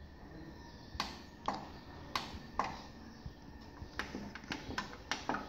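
Plastic push-buttons on the front panel of a Sharp CMS-R260CD stereo clicking as they are pressed, about nine clicks at irregular intervals. The set gives no sound in response; the fault turns out to be poor contact in its buttons.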